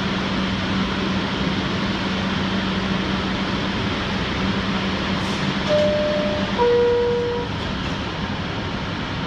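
Bombardier R62A subway car standing with a steady electrical hum, then a two-note electronic door chime about six seconds in, the signal that the doors are closing.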